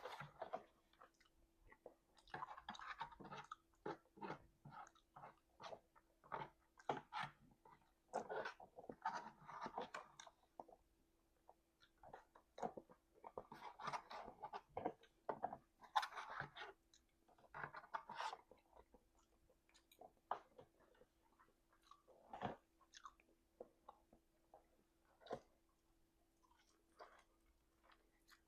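A person chewing messily with the mouth open: wet smacks and clicks in irregular bursts, with short pauses between mouthfuls, while eating oxtail and rice. A faint steady hum runs underneath.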